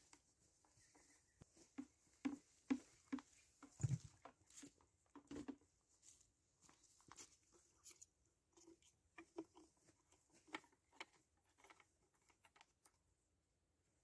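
Faint scattered clicks and taps of hands handling a Stihl brush cutter's plastic engine housing and a plastic fuel can during refuelling, with one louder thump about four seconds in.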